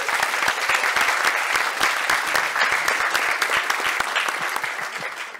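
Audience applauding with dense clapping, tapering off near the end.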